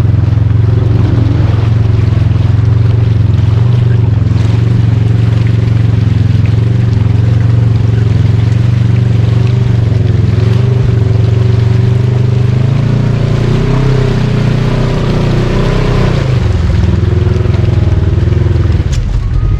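Off-road UTV/ATV engine pulling steadily under load while driving through a muddy, water-filled trail hole. The revs rise about two-thirds of the way through, then drop off shortly before the end.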